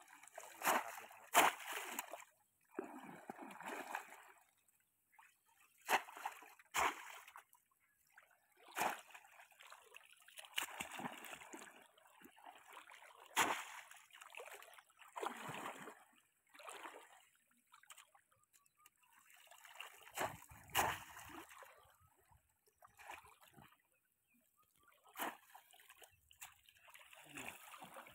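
Conical bamboo polo fish traps plunged down into shallow water and legs wading through it, making irregular splashes and sloshes, some with a sharp slap at the start, with short quiet gaps between.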